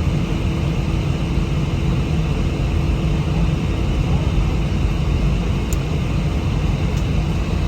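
Airbus A319 jet engines running at low taxi power, heard inside the passenger cabin as a steady low rumble with a faint constant hum.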